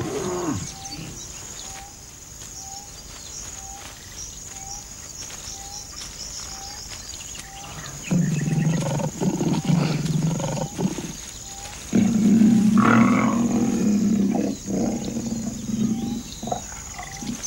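Lion and lioness growling: a snarl dies away in the first second, and after a quieter spell two long, deep growls come about 8 and 12 seconds in, followed by shorter ones. Behind them run a steady high whine and a faint chirp repeating about twice a second.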